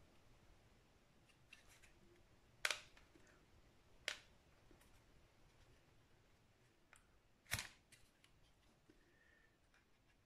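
Three sharp plastic clicks and a few fainter ticks against near silence, from the DJI Mini 2 drone's body being handled as its rear battery compartment cover is worked open.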